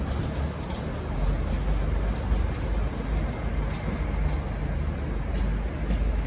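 Steady low rumble and running noise of a V/Line VLocity diesel railcar train, with no horn sounding.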